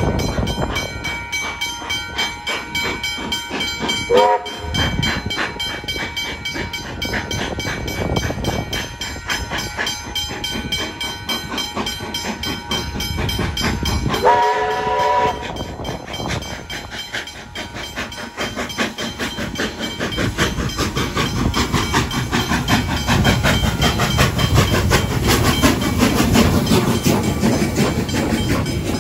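Steam train running, its whistle giving a short blast about four seconds in and a longer blast of about a second near the middle. The running noise grows louder in the last third.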